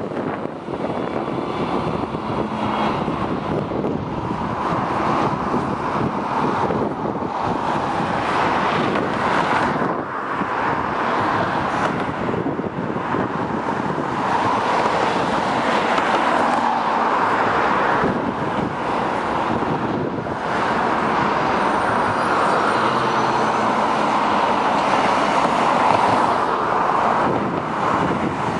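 Road traffic passing: city buses, an articulated bus among them, and cars driving by. Their engine and tyre noise blend into one continuous sound that swells and fades as each vehicle goes past.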